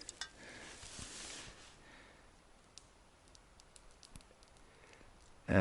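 Faint rustling for about the first second and a half, then a scatter of small, quiet clicks.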